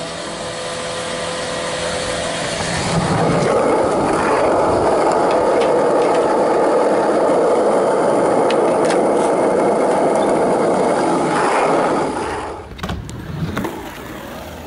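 Skateboard wheels rolling over rough concrete, a steady rolling noise that builds over the first few seconds and cuts off about twelve seconds in. A few sharp knocks follow.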